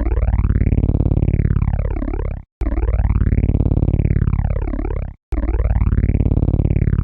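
Synthesized helicopter rotor sound: a rapid rotor-like chop with a sweeping, phasing swish, played as a short loop that cuts out briefly and restarts about every two and a half seconds, twice in this stretch.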